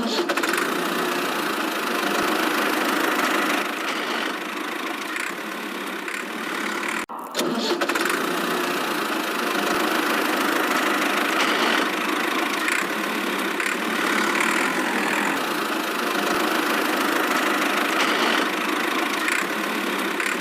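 A miniature model vehicle's small motor runs with a steady engine-like sound. It cuts out briefly about seven seconds in, then carries on.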